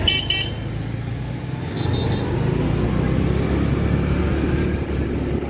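A moving two-wheeler's engine and road rumble heard from the rider's seat, with a short, sharp, high double beep right at the start.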